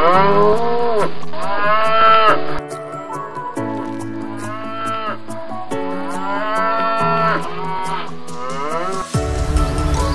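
Domestic cattle mooing: a run of about five drawn-out moos, the first two the loudest, over background music.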